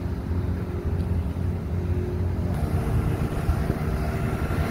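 River boat's outboard motor running steadily under way, a low even drone, with a rushing hiss that grows a little louder about two and a half seconds in.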